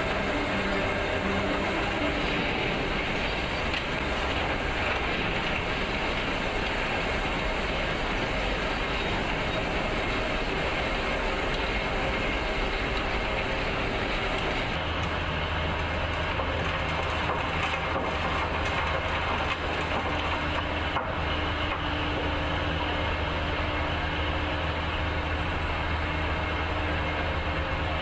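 Heavy tunnelling machine running: a dense, steady mechanical noise, with a deeper steady hum setting in about halfway through.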